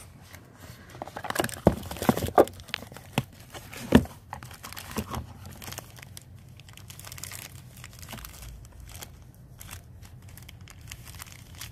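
Rustling and crinkling as a small cardboard box is opened by hand and a cloth pouch is pulled out of it, with a few sharp knocks, the loudest about four seconds in.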